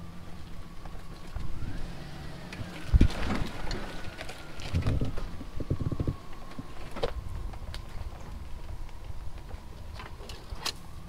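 Pickup truck crawling over a rough rocky trail: a low engine rumble with irregular clunks and knocks as the tyres and suspension go over rocks, the loudest about three, five and seven seconds in. A faint whine slowly drops in pitch underneath.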